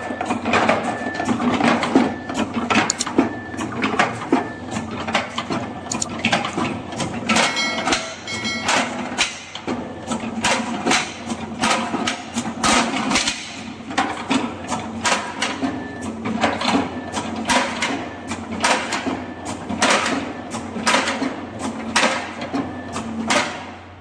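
Automatic sorting machine for cylindrical lithium cells running: rapid, irregular clacks and knocks from its pneumatic cylinders and the cells moving through it, over a steady hum. A few short electronic beeps come through, a cluster of them about eight seconds in.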